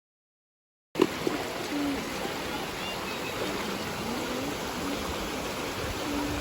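Silence for about a second, then a steady rush of flowing water starts abruptly and runs on evenly.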